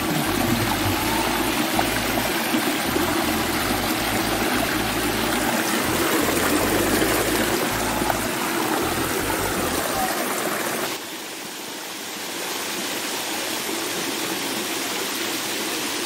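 Shallow rocky stream rushing and splashing over stones close by, a steady rush of water. About eleven seconds in, it drops to a quieter, thinner rush.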